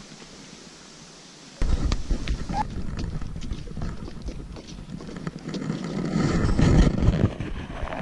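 Wind rumbling on the camera microphone, with scattered knocks of footsteps and handling. It starts abruptly about a second and a half in, after a quiet hiss.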